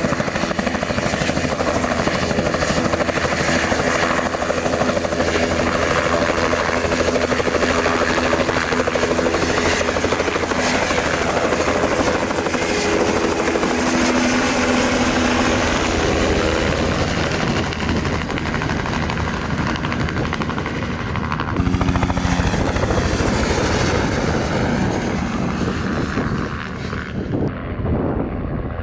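Bell 505 Jet Ranger X helicopter, its single turboshaft engine and two-blade main rotor running at flight speed and lifting off close by, with a high turbine whine over the rapid beat of the rotor. About three-quarters of the way through, the sound changes abruptly to the helicopter flying past at a distance, quieter and without the whine.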